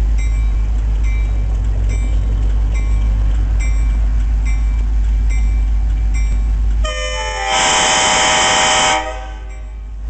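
EMD F40PH diesel locomotive approaching slowly, its engine rumbling steadily while its bell rings about every half second or so. About seven seconds in, the multi-chime air horn sounds one blast of about two seconds.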